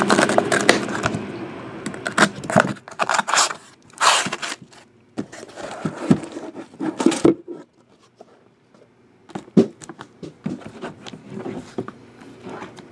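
Cardboard shipping box being opened by hand: irregular scrapes, rustles and tearing of cardboard and packing tape as the flaps are pulled open and the boxes inside slid out, with a short lull a little past the middle.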